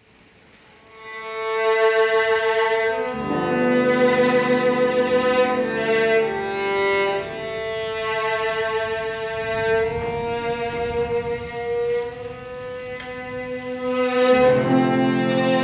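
Violin playing a slow melody of long held notes over piano accompaniment, fading in from near silence over the first second or two.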